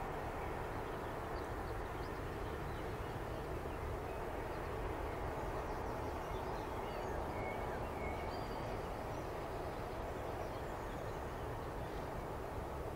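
Freight train of tank wagons rolling away into the distance, a steady rumble of wheels on rails. A few faint bird chirps come about halfway through.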